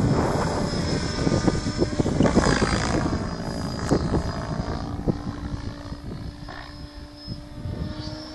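Mikado Logo 800 Xxtreme electric RC helicopter flying overhead, its rotor and motor whine rising and falling in pitch and fading toward the end. A heavy low rumble on the microphone dominates the first few seconds.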